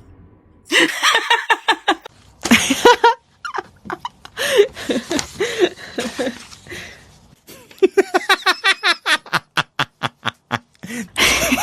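A person laughing in several fits, breaking into a quick run of short ha-ha pulses about eight seconds in.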